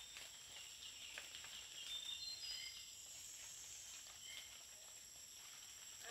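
Faint tropical rainforest ambience: a steady high-pitched insect drone, with short whistled bird notes scattered through it and a few light clicks.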